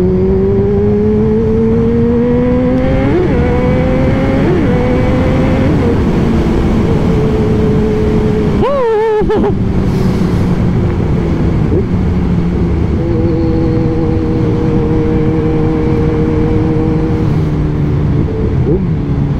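Kawasaki Z1000's inline-four engine with an aftermarket full exhaust, under way: the pitch rises as it accelerates over the first three seconds, then holds steady at cruise. The engine sound briefly drops away about nine seconds in before picking up again, with steady wind noise underneath.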